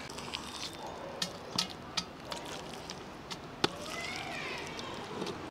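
Metal spoon scraping and tapping against a metal bowl while thick mango pickle is pushed out into a ceramic jar: a scatter of light, sharp clicks, sparse and uneven.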